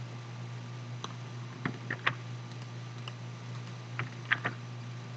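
About eight light, irregularly spaced clicks from a computer mouse and keyboard keys, over a steady low hum.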